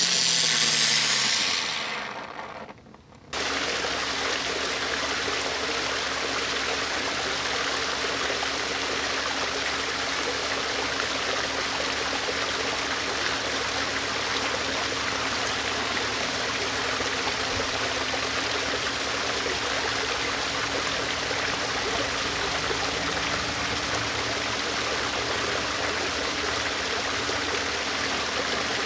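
A hiss with a falling whine fades out over the first couple of seconds. Then the sound cuts abruptly to a waterfall splashing steadily.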